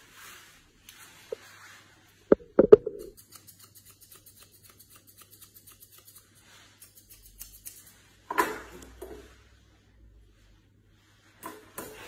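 Grooming scissors snipping quickly through a Shih Tzu's facial hair, about five cuts a second. It is broken by a few loud knocks about two seconds in and again past the middle.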